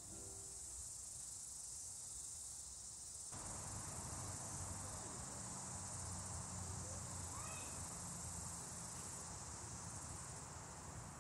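Outdoor ambience of insects chirring in a steady high-pitched drone, with a low background rumble that comes up a few seconds in.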